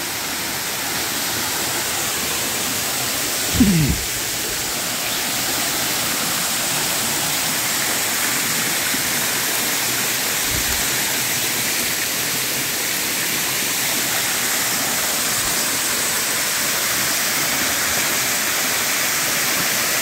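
Waterfall pouring into a pool, a steady rushing of water, running high with muddy water after heavy rain. A short sound falling in pitch cuts in briefly about three and a half seconds in.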